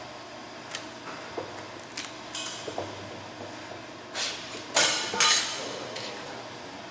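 Hand-lever bench shear cutting thin 0.019-inch steel sheet: light clicks and clinks, then two loud scraping crunches of the blade about two thirds of the way through, after a smaller one just before.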